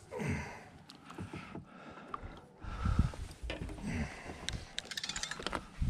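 Wind buffeting the microphone in low rumbling gusts, with scattered knocks and a quick run of clicks from fishing rods and reels being handled on a boat deck.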